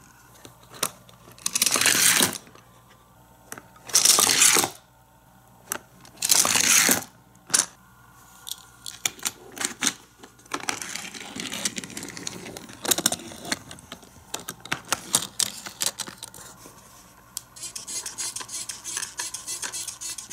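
Toy water blaster squirting water onto a die-cast car under a plastic dome: three spraying bursts, each under a second, in the first seven seconds. Then clicks and clatter of small plastic toy parts and a die-cast car being handled.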